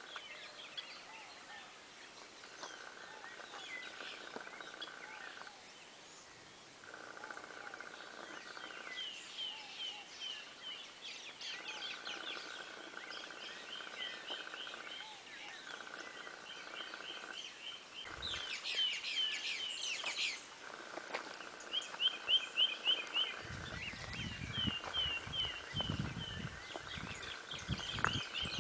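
Birds calling: quick runs of short chirping notes, repeated again and again, over a steady buzz that starts and stops in stretches of a few seconds. From about two-thirds of the way through come low thumps and knocks, the loudest sounds.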